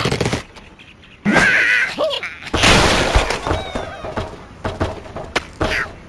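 Angry Birds game sound effects: a cartoon bird's cry as it is flung from the slingshot, then a loud crash of wooden planks and glass blocks breaking and falling, with smaller knocks and a short falling cry near the end.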